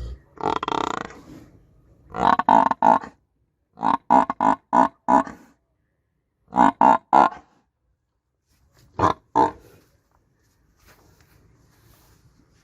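Buffalo grunts edited into a sound-effect sequence: one longer call near the start, then quick groups of three, five, three and two short grunts, with dead silence between the groups.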